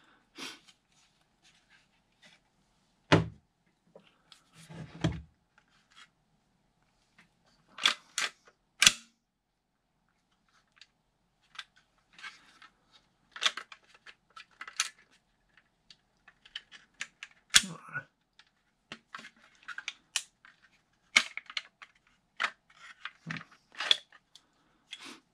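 Scattered clicks, clacks and short rattles as a 3D-printed PLA airsoft pistol conversion housing and the pistol's slide are handled and taken apart, with a few sharp clacks standing out, the loudest about eight to nine seconds in and near eighteen seconds.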